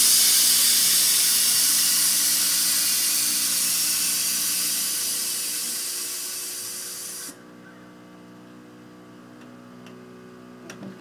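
Air-ride suspension dumping air through quarter-inch electronic valves as the truck is laid out: a loud hiss of air exhausting from the bags, fading slowly over about seven seconds, then cutting off suddenly as the bags empty.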